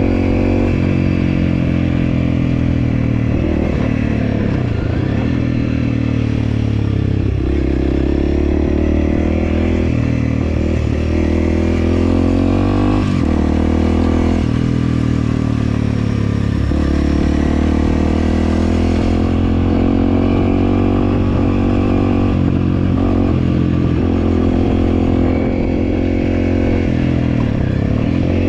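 Honda CRF300L's single-cylinder four-stroke engine running under way. Its note dips and climbs back again several times with changes of throttle.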